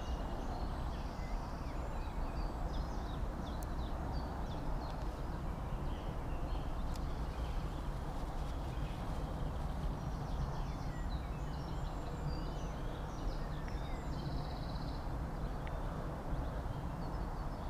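Many short bird calls scattered over a steady low rumble of outdoor background noise.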